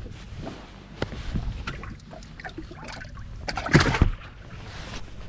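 Handling noises in a fishing boat as a walleye is put into the livewell: scattered knocks and rattles, then a loud splash and thump a little before four seconds in. A low steady rumble of the boat's motor runs underneath.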